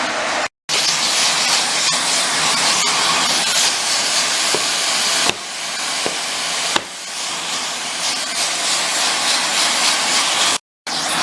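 Water spraying steadily onto a packaged air conditioner filter to wash it, a continuous hiss. It drops out to silence twice, briefly, near the start and near the end.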